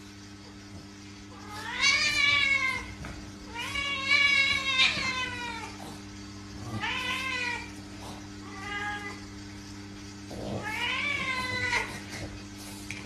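Cat yowling in protest, about five drawn-out meows that rise and fall in pitch, while a small dog climbs on it. A steady low hum runs underneath.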